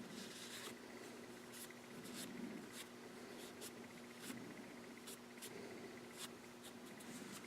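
Faint light scratching and scattered small ticks over a steady low electrical hum.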